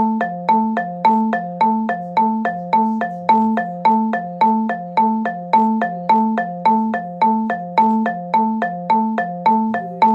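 Emergency alert alarm tone: a short marimba-like chime of several struck notes, repeating about twice a second over a low alternating two-note pulse.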